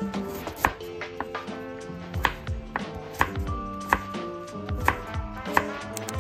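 Kitchen knife chopping fresh ginger into thin strips on a wooden cutting board, a sharp knock of the blade against the board about once a second.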